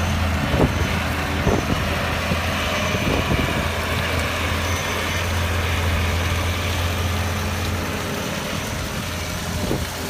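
Heavy diesel engine of construction machinery running steadily, with a few short knocks in the first few seconds.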